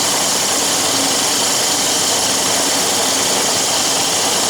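Dog food extruding machine running steadily: a continuous, even machine noise with a strong hiss.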